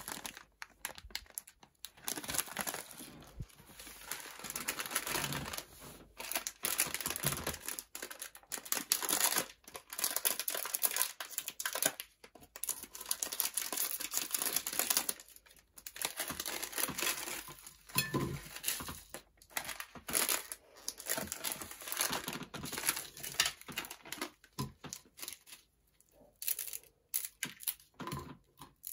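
Plastic instant-noodle packets crinkling in the hands and being torn open, in irregular bursts with short pauses.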